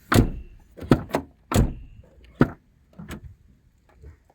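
Mercedes-Benz Citan door being opened and shut: a series of sharp latch clicks and door thuds, with the loudest near the start, about a second and a half in and about two and a half seconds in. The door lock has no rubber damper fitted.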